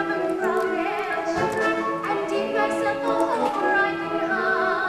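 Stage-musical singing: a voice carrying a melody over instrumental accompaniment.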